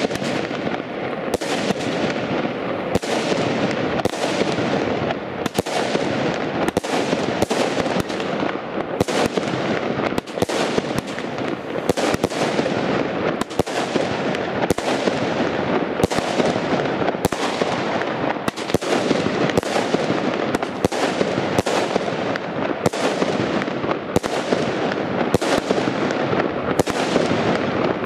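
Lesli Thunder Kong 'Brutus' fireworks battery (consumer cake) firing shot after shot, its breaking shells bursting in the air. The loud bangs come about one to two a second without a break, over a steady rush of noise.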